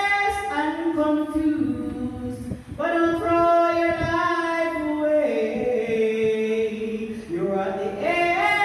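Voices singing a gospel hymn in long held notes that step from one pitch to the next.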